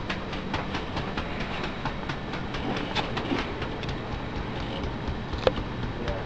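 Typing on a computer keyboard: a run of quick, irregular key clicks, several a second, over a steady low hiss.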